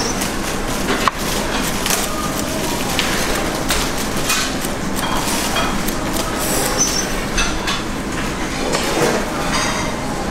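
Chef's knife finely slicing lovage stems on a plastic cutting board: a run of quick, uneven taps of the blade on the board, with a sharper knock about a second in, over a steady background rush.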